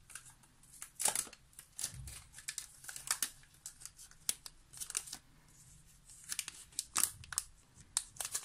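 Thin protective plastic film being peeled off a new Amazon Echo Dot, crinkling and crackling irregularly, loudest about a second in and again around seven seconds in.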